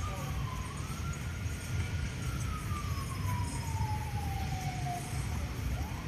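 A siren wailing, its single tone slowly rising and falling over several seconds, over a steady low rumble.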